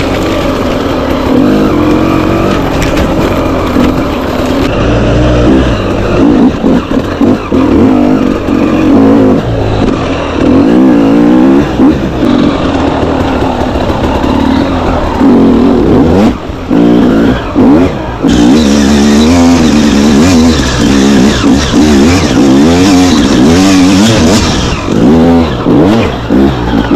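Dirt bike engine revving up and down as the rider works the throttle. The pitch keeps rising and falling, with frequent brief drops as the throttle is rolled off.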